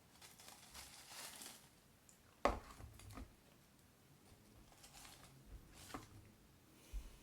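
Quiet handling of a Pringles can and chips: soft rustling and crinkling, with one sharp knock about two and a half seconds in.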